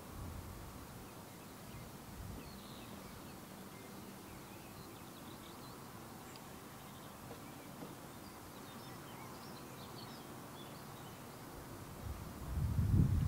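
Quiet countryside ambience: faint bird chirps over a low background rumble. Near the end, a louder low rumble swells in.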